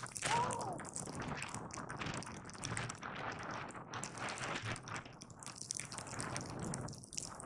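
Skis sliding and carving over fresh snow: an uneven hiss with irregular crackling and scraping, with a brief high tone just after the start.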